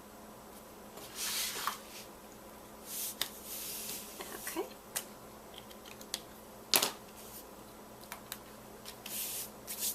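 Paper and cardstock being handled on a crafting table: short rustles of paper with a few sharp clicks and taps, the loudest click near the middle.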